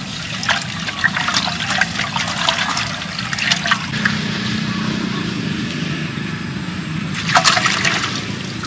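Steady trickling of running water, with light clicks and knocks of handling over it: rummaging in an earthenware jar early on, and a louder cluster of knocks about seven seconds in as limes are set down on a woven bamboo tray.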